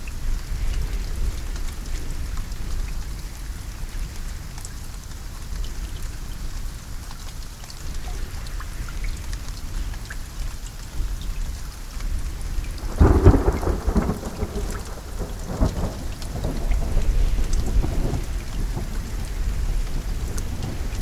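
Steady rain falling, with a clap of thunder about two-thirds of the way through that crackles and rolls on for a few seconds before fading back into the rain.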